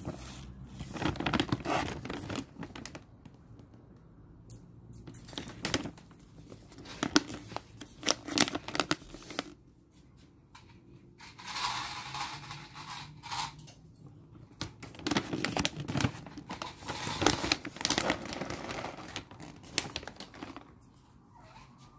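Paper Royal Canin kibble bag crinkling and rustling as it is handled and turned over, in irregular bursts with short quiet gaps between them.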